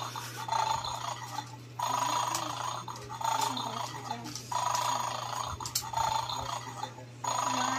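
Electronic sound effect from a battery-powered 'Bad Dog' toy dog game, repeating in about one-second bursts roughly every second and a quarter.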